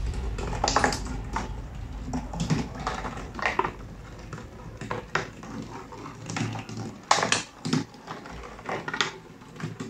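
Glass marbles clicking and rattling as a motor-driven cardboard escalator lifts them step by step and they roll and drop onto the cardboard tracks: irregular sharp clicks and knocks, some louder than others.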